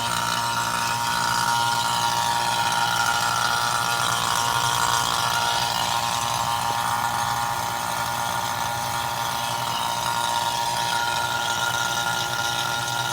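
Two-stage Robinair vacuum pump running steadily while pulling a vacuum on an air-conditioning system: an even motor hum with a steady high whine over it.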